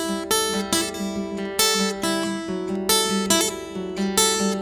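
Acoustic guitar strumming chords in a steady rhythm, a few strums a second, in the instrumental introduction before the singing starts.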